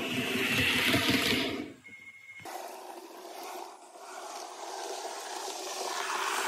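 Model train running on its track, electric motor and wheel noise: loud and close in the first two seconds, then, after a cut, a quieter rushing sound that grows as a model train approaches.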